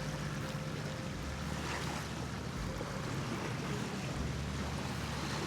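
Steady wind blowing across the microphone with water sounds beneath, a constant low rumble with no breaks.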